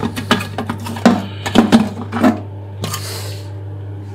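Hard plastic clicks and knocks from a Geberit concealed cistern's ball cock (fill valve) being unlocked and pulled out by hand, followed by a short hiss about three seconds in, over a steady low hum.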